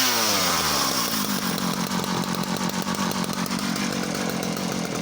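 Partner R35 85cc two-stroke chainsaw engine dropping from a throttle blip back to idle in the first second, then idling steadily.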